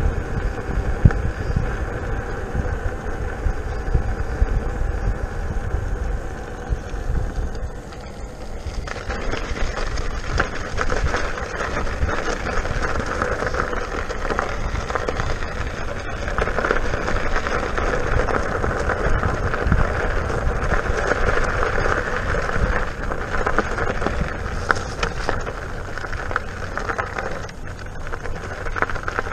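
King Song S18 electric unicycle riding: a steady motor whine over tire and road rumble on pavement, changing about eight seconds in to a rougher tire noise as it rolls onto gravel.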